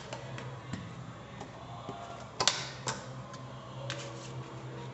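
Scattered clicks and knocks of kitchen utensils being handled, the loudest about two and a half seconds in, over a low steady hum.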